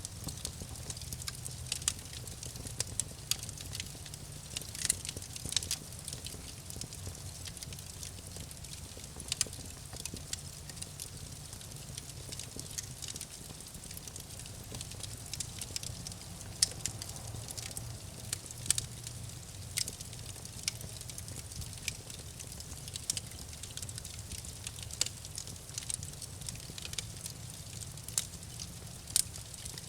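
Campfire crackling: sharp, irregular pops and snaps of burning wood over a steady low rumble of the flames.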